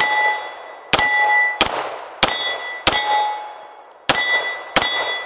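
A Beretta 92X Performance 9mm pistol is fired seven times in about five seconds, loosely in pairs. Most shots are followed by the clear, fading ring of steel plate targets being hit.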